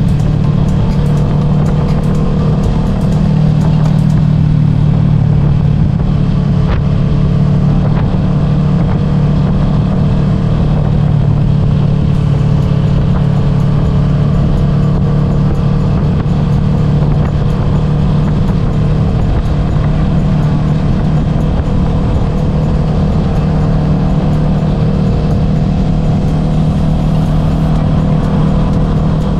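Kawasaki Z650's parallel-twin engine through a Dominator aftermarket exhaust, heard onboard while riding at a fairly steady engine speed.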